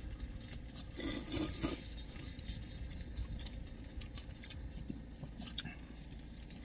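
Eating sounds of people having jjajangmyeon noodles and fried tangsuyuk pork: chewing, with small clicks and scrapes of chopsticks on plastic bowls. A louder noisy burst comes about a second in, over a low steady hum.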